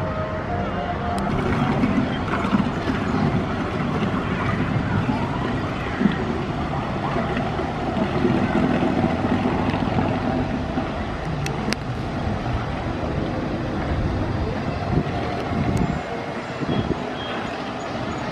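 Motor of a small tour boat running steadily as it passes, with a murmur of distant voices in the background.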